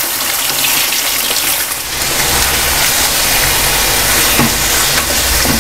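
Mutton pieces sizzling in hot ghee in a karahi as they are stirred and fried with a spatula: a steady, dense hiss. A low rumble joins about two seconds in.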